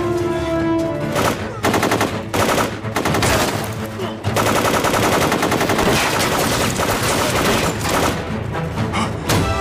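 Automatic gunfire. Short rapid bursts start about a second in, then a long continuous burst begins about four seconds in and runs nearly to the end, over background music.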